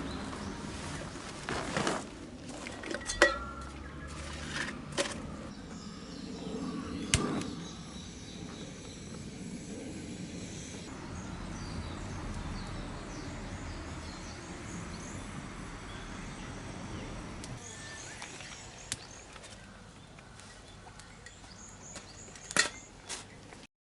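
Steady outdoor background noise, broken by several short, sharp knocks or clicks scattered through it; the loudest come about three seconds in and near the end.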